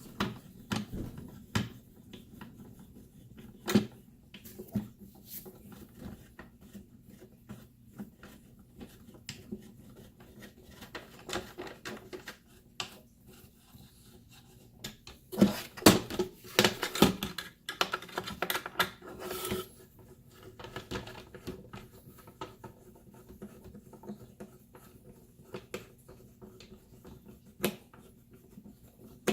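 A 1/8 inch Allen wrench turning leveling-foot screws down into a wooden T-TRAK module. Scattered clicks and taps of the metal key, with a busier stretch of clicks and scraping about halfway through.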